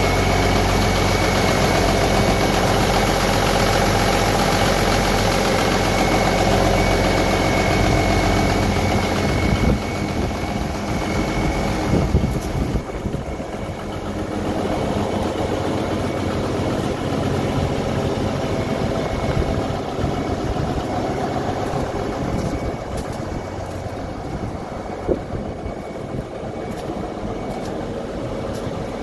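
1981 Versatile 895 tractor's Cummins 855 inline-six diesel idling steadily, with a thin high whine over it. It grows fainter and loses some of its low end after about ten seconds.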